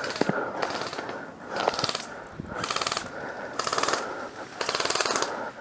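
Airsoft gun firing on full auto in several short bursts of rapid clicking, each about half a second long and roughly a second apart.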